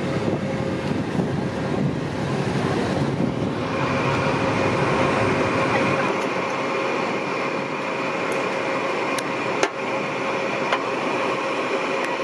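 Steady machinery drone with a high whine over it; the low rumble drops away about six seconds in, and a couple of sharp clicks come near the end.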